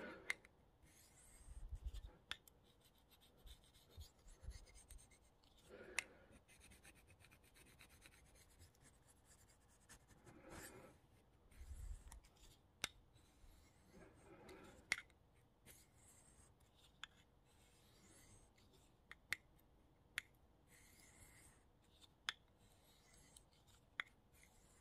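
Faint scraping of a steel knife blade drawn across a small handheld hone, in separate strokes a few seconds apart with light clicks between them.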